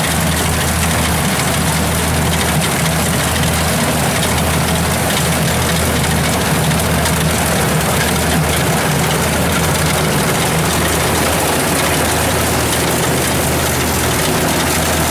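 Kubota DC70 rice combine harvester running steadily as it cuts and threshes standing rice: a constant low diesel engine drone under an even machinery hiss.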